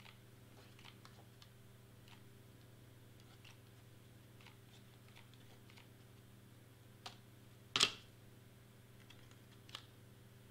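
Faint, scattered clicks and ticks of a hot glue gun and stiff cardstock being handled while hot glue is laid onto a paper piece, with a sharp knock about eight seconds in and two smaller knocks around it.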